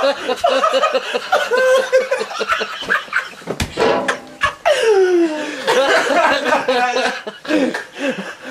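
People laughing hard in quick, rhythmic pulses, with a long falling laugh about five seconds in.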